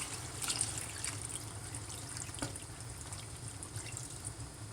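Water trickling into a pot of seasoned chicken for brown stew, faint and fading, with a few light drips and clicks.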